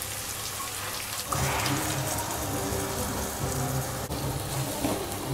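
Sliced onions sizzling steadily in hot oil in a wok, with low sustained musical tones coming in about a second in.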